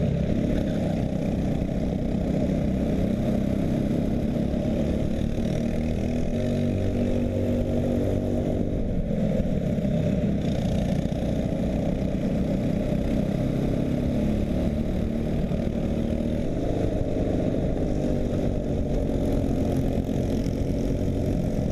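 Go-kart engines running steadily, with no clear rise or fall in pitch.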